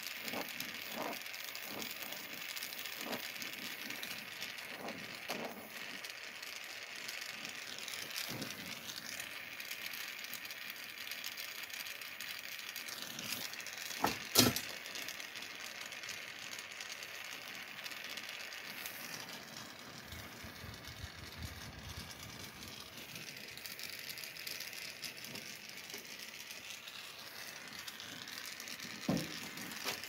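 Gas torch flame hissing steadily while it heats a metal bar clamped in a vice before bending. A few light knocks, with one louder sharp knock about halfway through.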